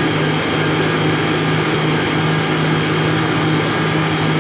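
Yamaha VX 110 jet ski's four-stroke four-cylinder engine running at a steady speed under load, its jet pump churning the water. The engine is running well, with its saltwater-clogged cooling and exhaust passages cleaned out and no longer overheating.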